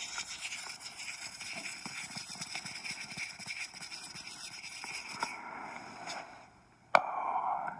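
Close-miked ASMR hand sounds: fingers rubbing and fluttering in a dense crackly rustle that fades about six seconds in, followed by a single sharp click near the end.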